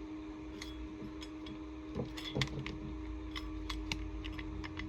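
Small metallic clicks and taps as a second oscillating multi-tool blade is fitted back to back onto the tool's head and its holes are lined up, a few irregular clicks spread through, over a steady low hum.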